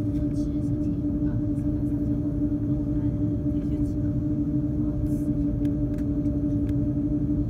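Cabin noise of an Airbus A330-300 taxiing on idle engines: a steady low rumble under a constant hum, with a few faint clicks.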